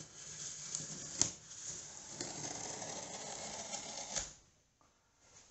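Knife blade slitting packing tape along a cardboard box seam: a scratchy ripping with a sharp click about a second in, stopping about four seconds in.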